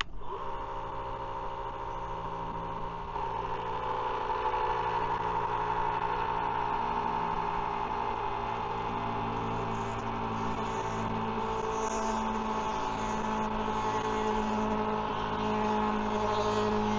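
Mellif battery-powered electric oil transfer pump running steadily, drawing front differential oil through the pump and hoses to flush them. Its hum shifts in pitch about three seconds in.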